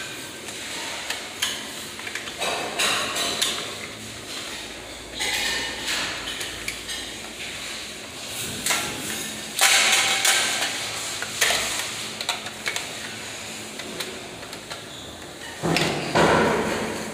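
Handling noises at an electrical breaker panel: intermittent knocks and clicks with bouts of scraping, louder about ten seconds in and again near the end.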